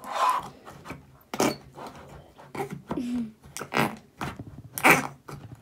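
Slime and its plastic container being handled by hand: irregular clicks and knocks, a few of them sharp.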